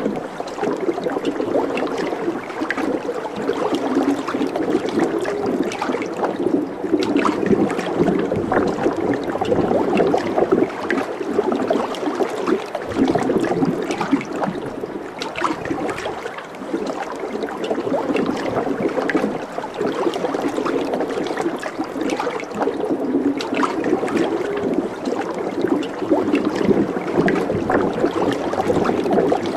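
Running water gurgling and trickling steadily, like a small stream.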